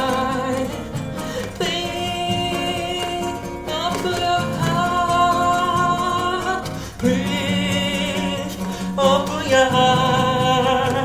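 A voice singing long held notes, some with vibrato, over a nylon-string classical guitar accompaniment.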